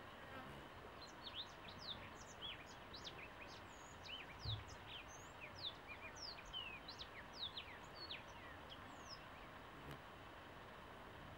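Small birds chirping, many quick downward-sweeping notes from about a second in until near the end, over a steady background hum of bees. A brief low bump about halfway through.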